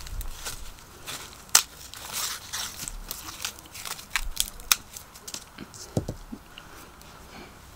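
Dry husks and silk being stripped and snapped off a ripe popcorn-maize cob by hand: crisp crackling and rustling with irregular sharp snaps, the loudest about a second and a half in.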